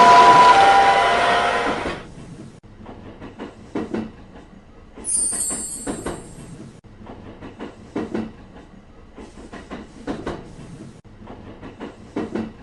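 A train going by, loud for the first two seconds and then fading. After that come quieter, irregular wheel clacks over the rail joints, with a brief high-pitched sound about five seconds in.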